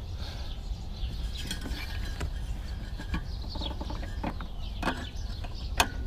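Scattered metal clicks and taps of a wrench being fitted to the fan clutch bolt behind a Mercedes mechanical cooling fan, with a few sharper clicks near the end, over a steady low rumble.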